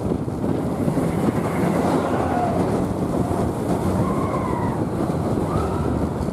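Big Thunder Mountain Railroad mine-train roller coaster running along its track, a steady rumbling noise with wind buffeting the microphone. A few faint short wavering tones sound above it now and then.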